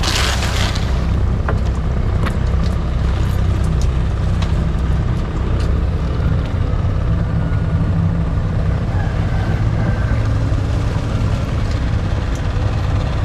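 Small boat's engine running steadily, a continuous low drone.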